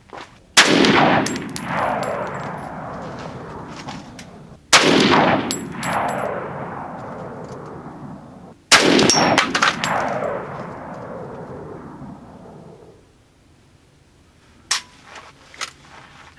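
Saiga 308 semi-automatic rifle firing three shots of Winchester 150-grain .308 about four seconds apart, each with a long echoing tail that dies away over several seconds. Short faint high ticks follow each shot, and a few light clicks come near the end.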